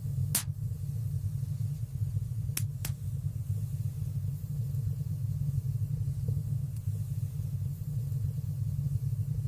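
Wood fire burning in a fireplace with a steady low rumble. There is one sharp crackle about half a second in and two quick pops in a row near three seconds.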